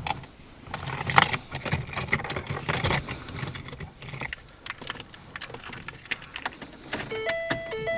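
Scattered clicks and rattles of metal and plastic parts being handled and fitted on a car's steering column. Near the end, a simple beeping electronic tune starts up.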